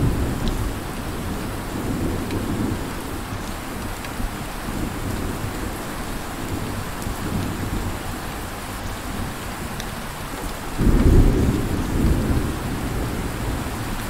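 Steady heavy rain with thunder rumbling low underneath; about eleven seconds in a louder thunderclap breaks in suddenly and rumbles on.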